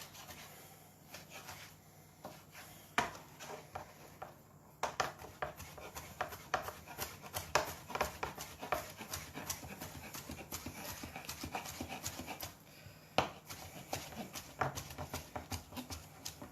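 Kitchen knife dicing bacon rashers on a cutting board: a few separate knocks, then rapid rhythmic chopping from about five seconds in.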